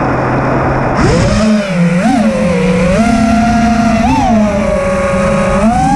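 Brushless motors of a 6S FPV freestyle quadcopter whining in flight, the pitch holding steady and then rising and falling in quick throttle punches every couple of seconds. A steady low hum gives way to it abruptly about a second in.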